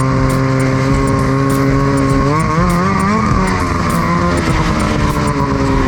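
Ski-Doo snowmobile's liquid-cooled engine running under way. It revs up with a wavering pitch about two seconds in, then settles back to a steady speed. The engine is running hot, because the icy trail throws no snow onto the heat exchanger.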